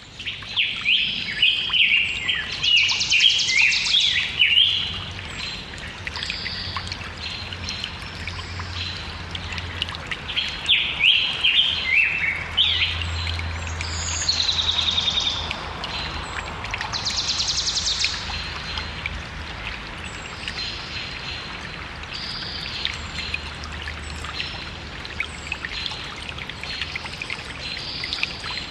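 Small stream trickling steadily while songbirds sing over it: runs of quick falling whistled notes in the first few seconds and again about ten seconds in, with short high trills coming and going throughout.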